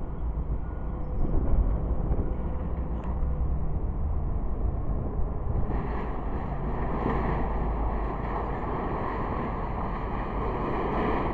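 Steady low rumble of distant engines, with a broader hiss building from about six seconds in.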